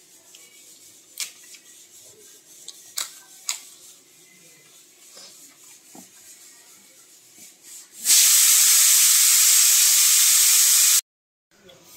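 Quiet eating with hands from a shared plate, with a few sharp crackles of crisps being broken. Then a loud, steady hiss of static starts suddenly about eight seconds in, lasts about three seconds and cuts off abruptly into dead silence.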